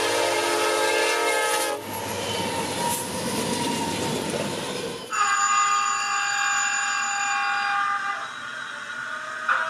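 Horn of a passing CN diesel freight locomotive sounding a steady chord, cutting off about two seconds in, followed by the rumble of the freight train's wheels and cars rolling past. About five seconds in this gives way abruptly to a different, higher steady chord that fades after about three seconds.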